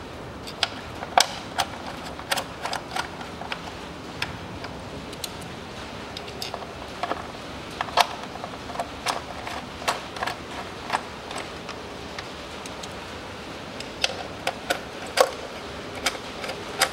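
Sharp metallic clicks and taps, irregularly spaced and sometimes in quick clusters, from a small socket wrench on an extension as the ignition-coil hold-down bolts are run in by hand on a Hyundai ix35's engine, not yet tightened.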